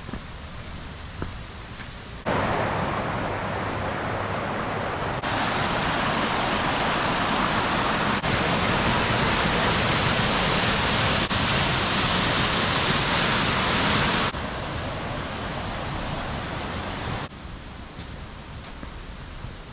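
Steady rush of falling water at Ozone Falls, a waterfall. It jumps abruptly louder a few times, then drops back down in steps near the end.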